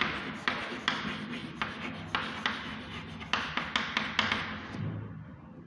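Chalk writing on a blackboard: a quick run of short scratchy strokes and taps that stops about five seconds in.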